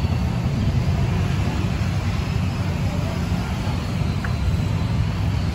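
Steady low rumble of motor-vehicle engine noise.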